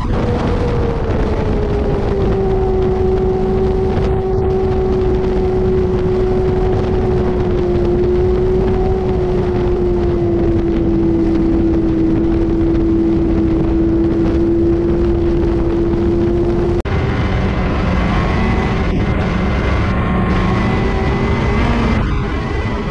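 Snowmobile engine running at a steady cruising speed, heard from on board, its note easing slightly lower over the first half. About 17 seconds in it cuts abruptly to a different engine sound with a thin high whine over it.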